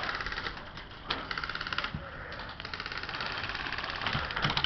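Airsoft guns firing rapid full-auto bursts: a fast, even rattle of shots, a short burst about a second in and a longer one from just past two seconds almost to the end.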